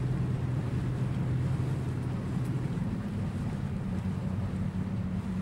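A boat's engine running steadily as the boat moves along, its low hum stepping up to a slightly higher note about three seconds in, with wind on the microphone.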